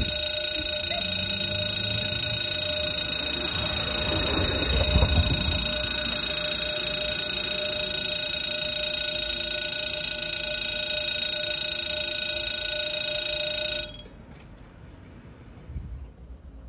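Level-crossing warning bell ringing continuously with a steady electronic tone, warning that a train is approaching, then cutting off suddenly near the end.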